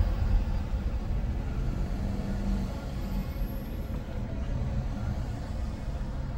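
Road traffic on a city street: a steady low rumble of passing cars that eases off slightly over the few seconds.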